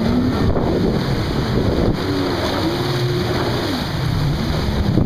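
Wind buffeting the microphone over running watercraft engines and churning spray, with an engine tone rising and falling as a waverunner carves tight turns.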